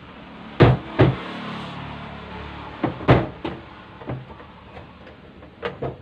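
Plastic top panel of an LG twin-tub washing machine being pushed and slid to open it: a handful of sharp plastic knocks and clunks, with a scraping rustle for a second or so after the second knock and two quick knocks near the end.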